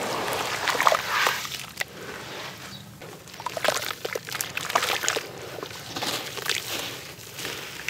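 Hands sloshing through muddy water and squeezing a soaked crumbly block: wet squelching and splashing in uneven handfuls, loudest in the first second and a half and again through the middle.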